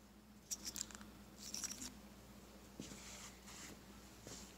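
Faint rustling and light clicks from hands handling a wiring harness and plastic sensor connectors, over a faint steady hum.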